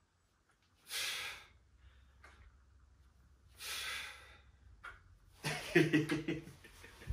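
A man breathing hard from exertion during dumbbell reps: two forceful exhales about three seconds apart. Near the end comes a louder, strained vocal noise with a rapid pulse.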